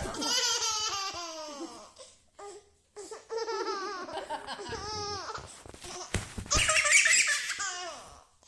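A baby laughing in three long high-pitched bouts, with short pauses between them.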